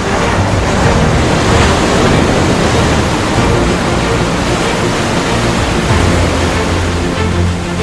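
Loud, steady rushing noise, like surf or a rising whoosh, with low music tones faintly underneath; it eases off near the end.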